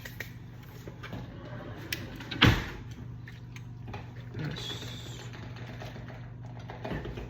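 Kitchen handling noises: scattered clicks and knocks, with one loud thump about two and a half seconds in, over a steady low hum.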